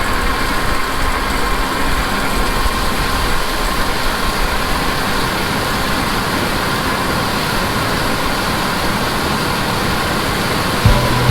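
Harvest machinery running: a steady, heavy engine drone with a faint constant whine. Music cuts in near the end.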